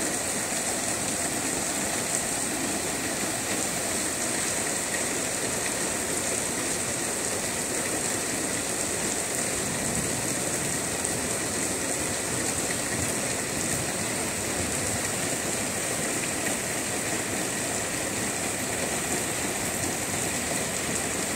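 Steady rain falling on leafy trees, an even hiss that holds without let-up.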